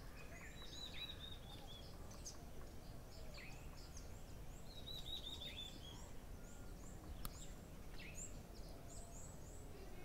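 Several small birds chirping and calling, with two quick series of high notes, one near the start and one about halfway through, over a faint steady low rumble.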